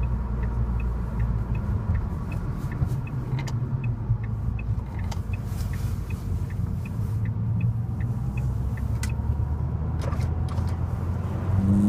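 Ford Fiesta ST with a Mountune cold air induction kit running at low revs, a steady rumble heard from inside the cabin, with the turn-signal relay ticking in a steady tick-tock. Near the end the revs start to rise as it accelerates.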